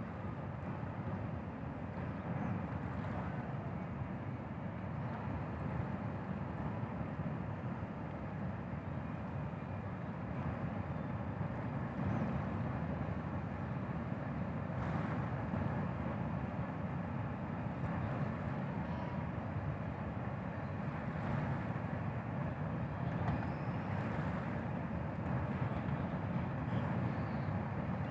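Steady low engine rumble from the passenger ship Kelud and its harbour tug as they manoeuvre away from the quay, getting slightly louder toward the end.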